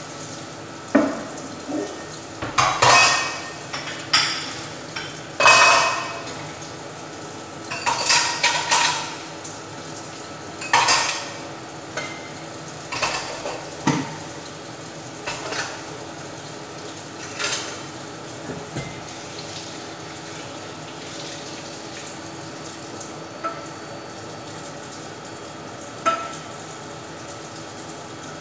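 Washing up in a stainless steel sink: a ceramic bowl, utensils and a pan clattering and clinking against the steel over tap water running steadily. The clatter is busiest in the first half, then thins to a few single clinks.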